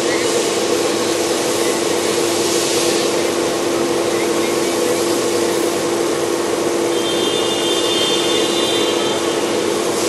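Volkswagen Vento TSI turbocharged petrol engine running steadily, heard from the open engine bay as an even hum with a constant tone in it. The level holds steady, with no surging.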